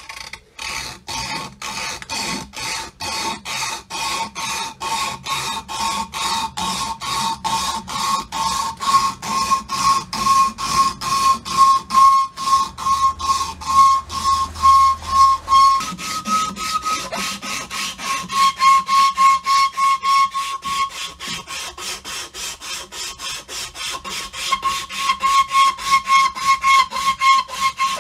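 Rapid back-and-forth hand-file strokes on the ax, about three a second, each stroke carrying a high squealing whistle; the squeal shifts a little higher partway through.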